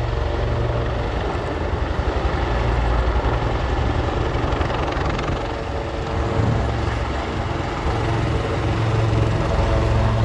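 Royal Navy AgustaWestland Wildcat helicopters flying a display, with a steady, rapid rotor chop and engine tones.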